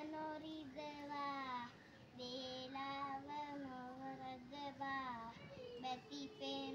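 A young boy singing solo, holding long notes, with short pauses for breath about two seconds in and again near the end.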